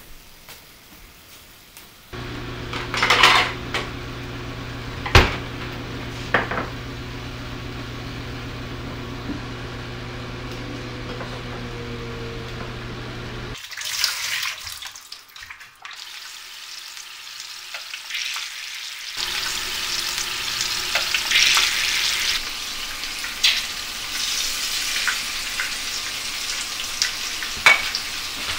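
Kitchen cooking sounds: utensils clinking and knocking against pots and dishes, at first over a steady hum, then over a steady hiss like something heating or sizzling in a pan.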